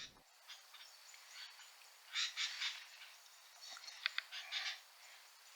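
Sooty-headed bulbuls calling in short bursts of quick notes, with a run of sharp, clipped notes about four seconds in.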